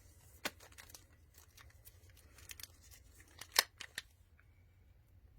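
A packet of incense sticks being handled and opened: scattered crinkling and tearing of the wrapping with sharp clicks, the loudest snap about three and a half seconds in.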